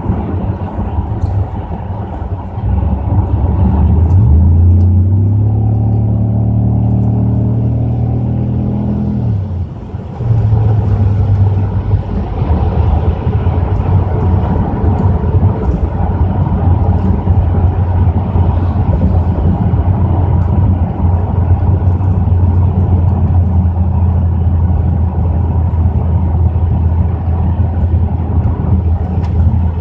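Pontiac Grand Prix GXP's 5.3 L LS4 V8 through a Flowmaster cat-back exhaust, accelerating hard with the pitch rising, then holding. About ten seconds in it drops off briefly, then settles into a steady cruising drone at highway speed.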